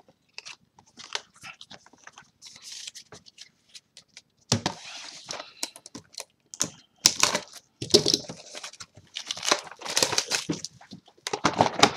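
Trading cards and their packaging being handled and torn open by hand: a few faint light clicks at first, then from about four and a half seconds in a busy run of sharp crinkles, snaps and rustles.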